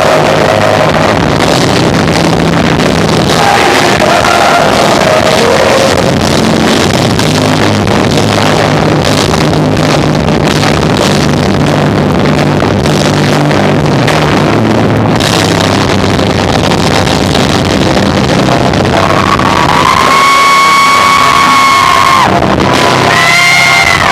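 Live rock band of electric guitar, bass and drums playing loud, with sung vocals, poorly recorded and near the top of the level range. A long held note rings out near the end.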